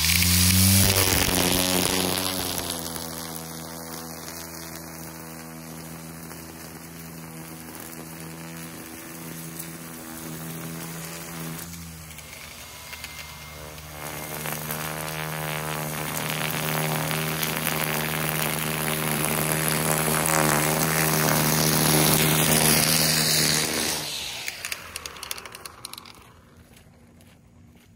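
EGO cordless electric string trimmer edging grass along a concrete sidewalk: the motor spins up at the start and runs with a steady whine and the hiss of the line cutting. It fades as the trimmer moves away, grows louder as it comes back, then winds down and stops about 24 seconds in.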